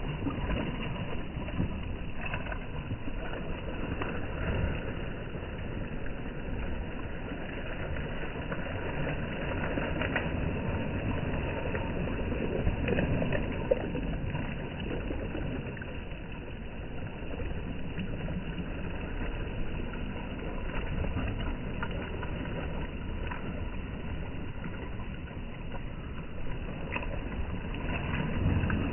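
Small sea waves lapping and splashing against a rocky shore and the base of a stone platform: a steady wash with a low rumble.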